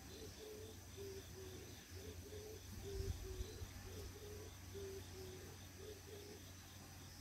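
Faint outdoor ambience: a steady run of short, low hooting notes, about three a second, alternating between two pitches, over faint insect chirping and a low rumble of wind on the microphone.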